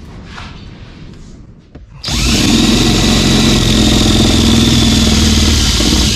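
Cordless drill starting up about two seconds in and running steadily at speed, its bit drilling out a hole in a pickup's sheet-metal firewall to 5/16 inch.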